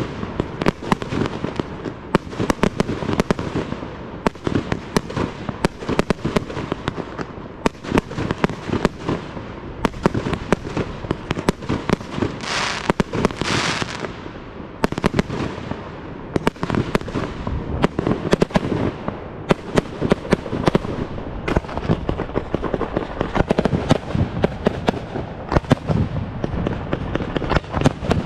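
Aerial fireworks display: a continuous, irregular run of shell launches and bursts with rapid crackling bangs, and a loud hiss lasting about a second and a half midway.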